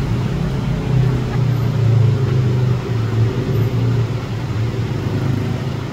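A motor engine running steadily with a low, slightly wavering drone over a constant rush of noise.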